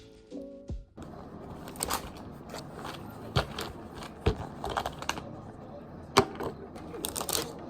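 Background music that stops about a second in, then steady background noise with scattered sharp clicks and knocks.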